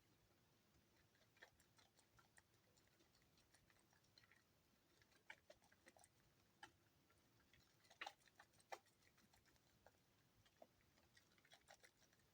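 Faint wet clicking and crackling of a bar of soap being lathered with water, foam squelching and popping, with a few louder clicks about eight seconds in.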